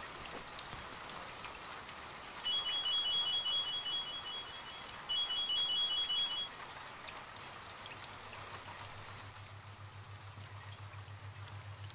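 Steady hiss throughout, with two bursts of rapid, high-pitched electronic beeping, the first lasting about two seconds and the second a little shorter. A low, pulsing hum comes in about two-thirds of the way through.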